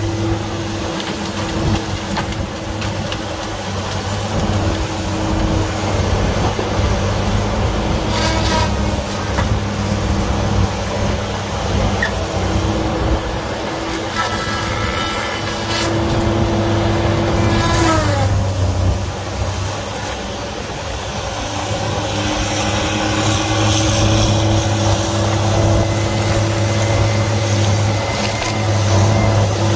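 Diesel engine of a feller buncher running steadily under load, with a few brief higher whines midway, one falling in pitch.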